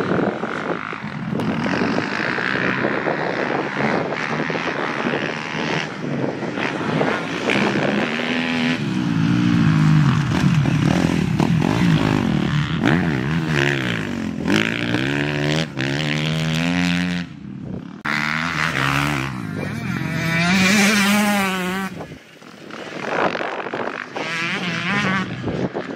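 Motocross dirt bike engines revving, the pitch climbing and dropping again and again as the riders open the throttle and shift gear round the track. The sound changes abruptly several times.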